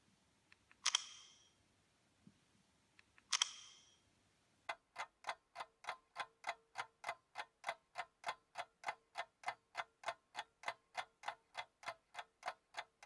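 Two sharp strikes, each ringing briefly, then a steady mechanical ticking starting a little under five seconds in, about three and a half ticks a second.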